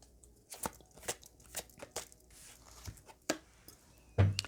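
Oracle cards and paper being handled at a table: a string of irregular short, sharp taps and light rustles.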